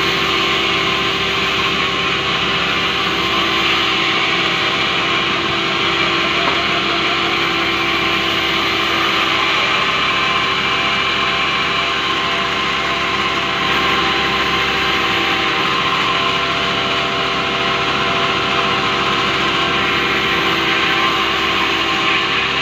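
Large vertical band sawmill running steadily while a big rubberwood log is fed through its blade to be split lengthwise: a loud, continuous machine noise with a few constant tones.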